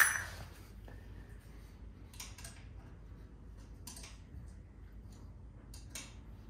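Small metal tool sounds: a sharp metallic clink right at the start, then a few faint clicks and taps a second or two apart as a 3/16 in hex key is worked on the ABS sensor fastener of the new coilover.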